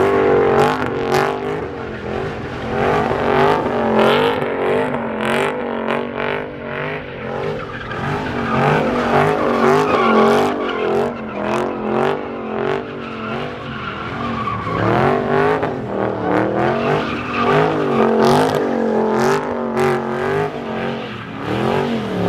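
A Dodge Charger doing donuts: the engine revs rise and fall over and over while the spinning rear tyres screech.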